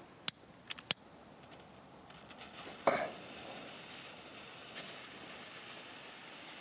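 A hand lighter clicks twice, then a BP30S Glow Party firework stick catches about three seconds in with a sudden loud rush and burns on with a steady hiss.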